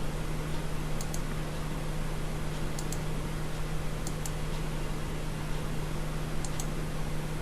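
Steady microphone hiss with a low electrical hum, broken by a few faint computer mouse clicks, mostly in quick pairs, about four times.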